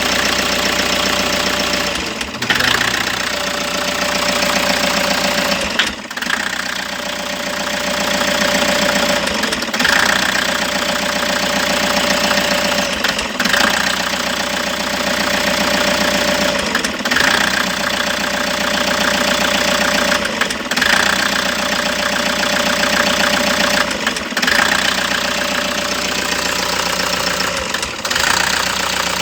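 Toyota HiAce engine running with a misfire. The sound dips briefly at regular intervals, about every three and a half to four seconds.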